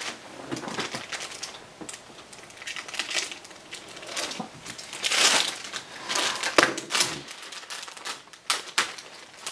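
Plastic model-kit parts and their bag being handled: crinkling and rustling plastic with light clicks, one louder rustle about five seconds in.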